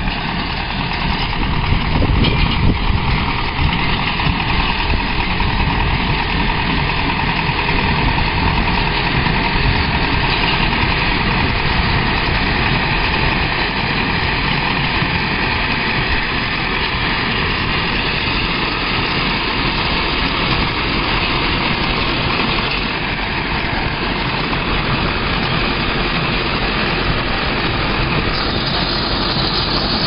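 Small farm tractor's engine running steadily, driving a PTO-driven small square baler that is picking up and baling straw.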